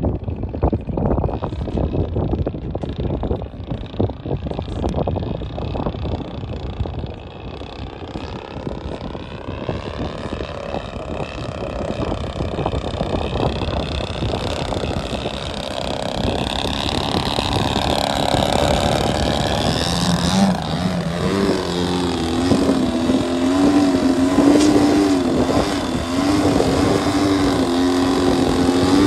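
Motor and propeller of a radio-controlled 3D aerobatic biplane, at first mixed with wind buffeting on the microphone, growing louder as the plane comes close. From about two-thirds of the way in it becomes a strong, steady drone that wavers slightly in pitch as the plane hangs nose-up on its propeller.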